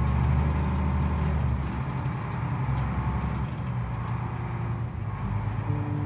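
Diesel engine of a small harbour ferry running with a steady low drone, easing slightly about two seconds in.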